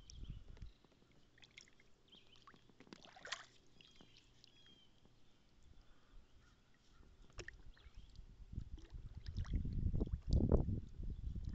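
Water dripping from a lifted kayak paddle blade onto calm water, with small scattered splashes and clicks. In the last few seconds a low rumble builds up on the microphone.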